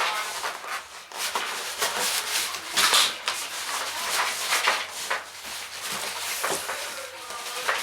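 A cardboard box and its packaging rubbing, scraping and rustling in irregular bursts as a boxed PC case is pulled open and worked out of it.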